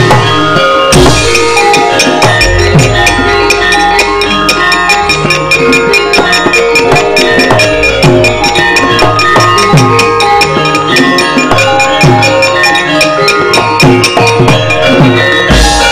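Javanese gamelan accompanying a wayang kulit shadow-puppet play: bronze metallophones ring out a fast melody over repeated kendhang drum strokes that drop in pitch, with dense wooden knocking throughout.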